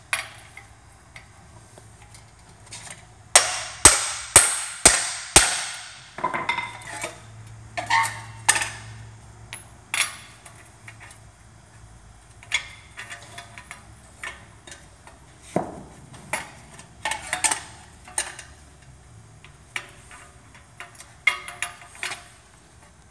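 Hammer blows on steel while a Honda Civic/CRX wheel hub is driven out: four hard strikes about half a second apart a few seconds in, then lighter knocks and clinking of tools and metal parts.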